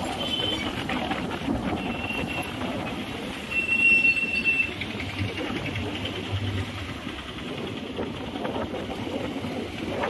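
Steady rumbling traffic noise with a few short high-pitched squeals, the longest and loudest about four seconds in.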